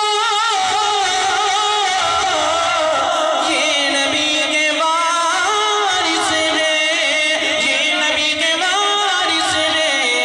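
A man's solo voice singing an Urdu nazam into a microphone, drawing out long, wavering, ornamented notes.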